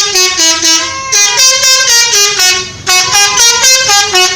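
Multi-tone telolet bus horn playing a quick tune of short notes that step up and down in pitch, several notes a second.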